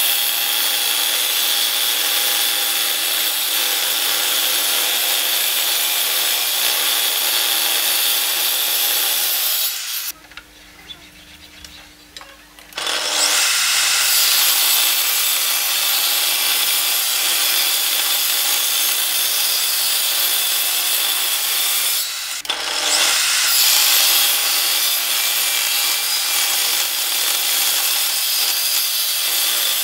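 Portable table saw ripping a narrow strip of wood along the rip fence: a loud, steady hiss of the blade cutting. The sound drops away for about three seconds about a third of the way in, and dips again briefly about two-thirds through.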